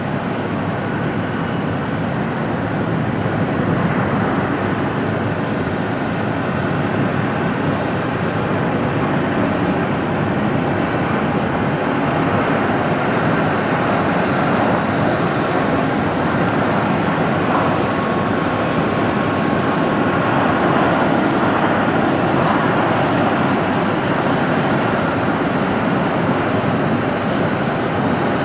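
Jet engines of an Airbus A320 airliner during its landing roll-out on the runway: a loud, steady rushing noise that swells slightly past the middle, with a faint thin whine in the second half.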